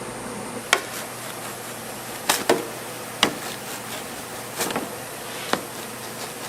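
Kitchen work clatter: about six sharp knocks and clicks at irregular spacing over a steady background hiss.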